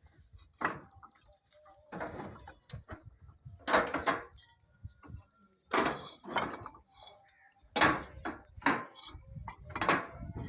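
Irregular knocks and scrapes, about a dozen of them spread unevenly.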